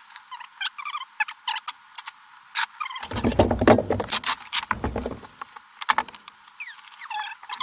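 Fast-forwarded audio of drywall work: squeaky, high-pitched chatter with rapid clicks and knocks, and two bursts of low thumping about three and five seconds in.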